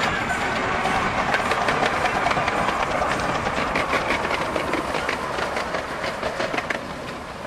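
Miniature 10¼-inch gauge steam locomotives running past, with quick rhythmic exhaust chuffs and the clatter of wheels on the rails. The sound eases off a little near the end.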